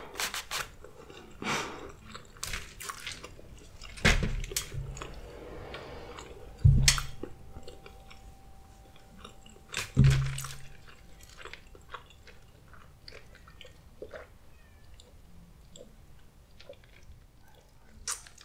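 Close-miked chewing and mouth sounds, with scattered small crackles and three louder low thumps about four, seven and ten seconds in.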